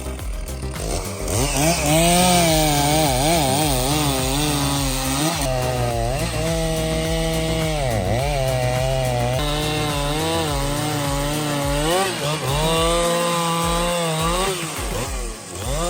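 Chainsaw running as it cuts through wood. Its engine note wavers up and down throughout and dips sharply a couple of times as it loads in the cut.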